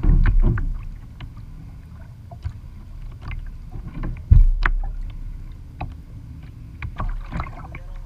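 Water lapping and splashing around a plastic sit-on-top kayak under way, with scattered paddle drips. Dull low knocks come at the start and, louder, about four seconds in.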